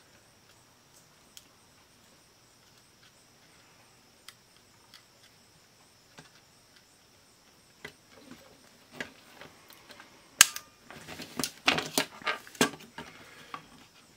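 Scattered faint clicks from handling a small portable cassette player, then a run of louder plastic clicks and knocks in the second half as its plastic housing is fitted back over the circuit board.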